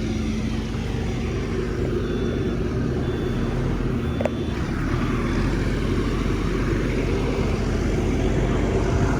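A vehicle engine running steadily: a low, even rumble and hum.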